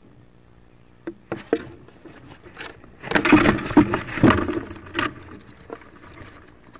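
Wood duck hen moving about inside a wooden nest box right against the microphone: a few sharp knocks and scratches, then about a second and a half of loud scuffling and feather rustling as her body brushes the camera, tapering off into scattered scratches.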